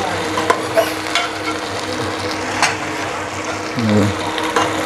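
Pork pieces sizzling as they fry in an aluminium pressure cooker, stirred with a metal slotted skimmer. The spoon scrapes and clicks sharply against the pot several times.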